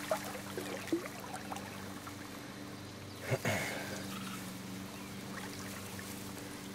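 River water trickling and lapping at the bank around a large brown trout held in the shallows to revive, with one brief louder sound about halfway through.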